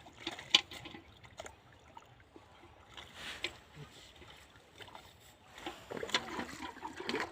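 Water splashing and sloshing in irregular bursts as rainwater is bailed or pushed out of a flooded potato field.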